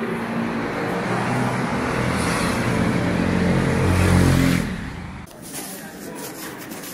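A motor vehicle's engine running close by, growing louder until about four seconds in and then fading. A second or so later it gives way abruptly to quieter indoor hall ambience with small clicks.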